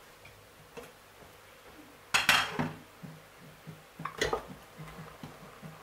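Kitchen clatter of a glass pot lid and a ceramic bowl against a steel cooking pot: a small click, then a loud knock about two seconds in as the lid comes off, and another knock after four seconds as boiled meat is tipped from the bowl into the boiling water.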